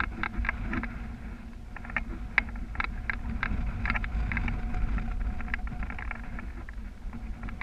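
Wind rushing over the microphone of a camera carried by a paraglider pilot in flight: a steady low rumble, with irregular light ticks and clicks over it.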